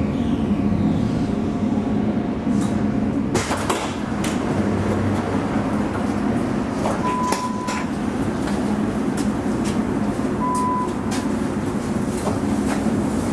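Alstom Citadis tram at a standstill, heard from the cab: its onboard equipment hums steadily. A faint electrical tone cuts off with a click about three seconds in, and later there are a few clicks and two short high beeps.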